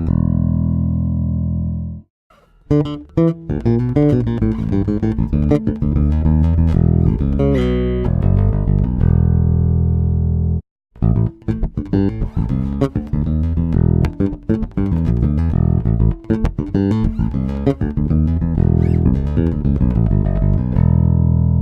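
Warwick RockBass Fortress 4 four-string electric bass played solo: a held low note, then runs of plucked notes, stopping briefly about two seconds in and again about eleven seconds in, and ending on another held note.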